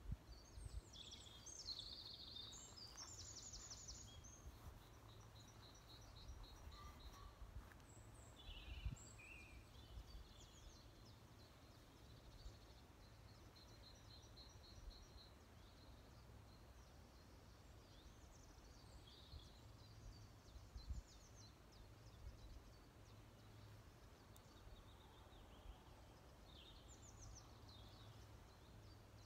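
Faint woodland birdsong: several small birds chirping and trilling at intervals over a low steady outdoor rumble, with a few soft low bumps.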